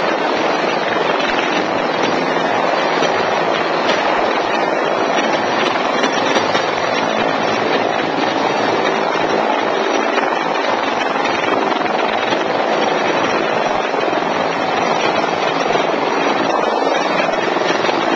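Helicopter running close by: its turbine engine and rotor make a steady, loud din.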